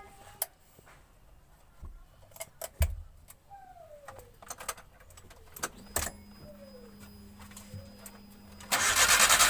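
Keys jangling and clicking at the ignition, then a faint steady hum once the key is switched on. Near the end the Suzuki K6A three-cylinder engine cranks and starts at once, on one turn of the key: the hard-starting fault is cured.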